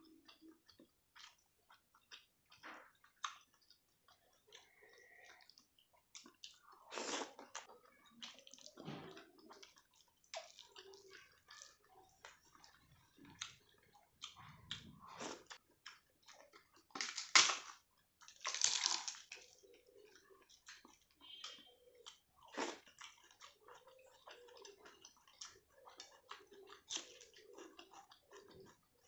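Close-miked eating sounds: chewing and wet mouth noises as rice, dal and boiled cabbage are eaten by hand, with wet squishing as rice is mixed into dal on the plate. Irregular small clicks and smacks throughout, with a few louder bursts, the loudest a little past the middle.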